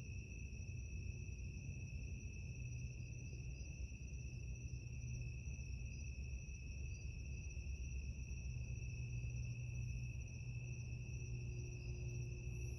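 Crickets trilling steadily at one high pitch, over a faint low rumble of background noise.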